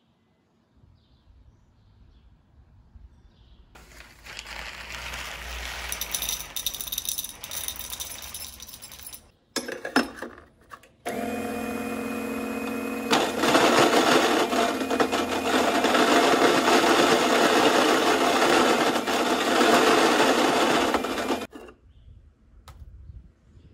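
Saeco M50 electric coffee grinder running and grinding beans into its dosing cup, in two runs. The second run starts as a steady motor hum, grows louder about two seconds later, and cuts off sharply near the end.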